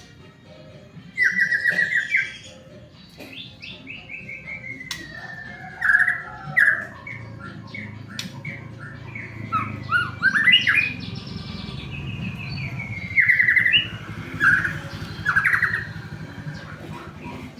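White-rumped shama singing: loud, varied phrases of rapid repeated whistled notes and falling slurs, broken by short pauses.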